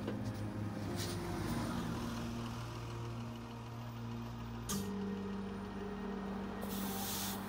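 Transit bus running close by, its air brakes hissing briefly about a second in and just before five seconds, and a longer hiss near the end, over soft sustained background music.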